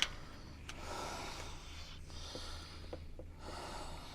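A man breathing near the microphone in soft, drawn-out breaths over a faint steady low hum, with a brief click at the start.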